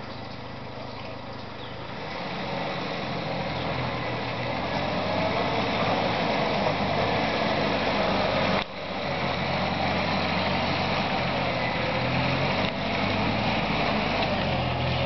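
Jeep engine running at low speed as it crawls through deep mud, growing louder over the first few seconds as it comes closer.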